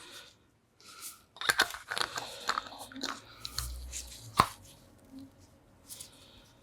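Hand-handled parts of a dismantled cordless impact wrench's gearbox, clicking and scraping together in a run of small knocks, with one sharp knock about four and a half seconds in.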